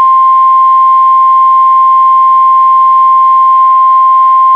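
NOAA Weather Radio 1050 Hz warning alarm tone: a single loud, steady, pure tone. It is the alert that a new weather warning message is about to be broadcast.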